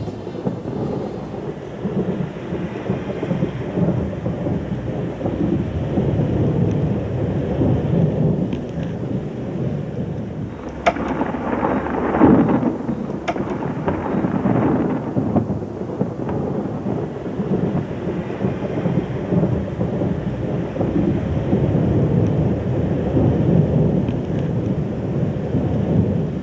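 Night thunderstorm: steady rain with rolling thunder, and a sharp thunderclap about eleven seconds in that swells into a long rumble.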